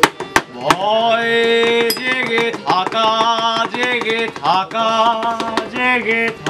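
A man singing loudly in long held notes, with hands slapping a wooden table as a makeshift drum; a few sharp knocks come just before the voice starts.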